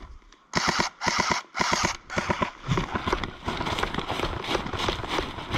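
Running footsteps through dry undergrowth with gear rustling: three loud rustling swishes about half a second in, then quick regular strides at about three a second.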